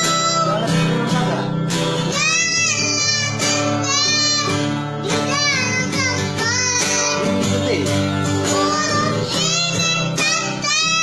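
Background music: a song with a high singing voice over a steady plucked-string accompaniment.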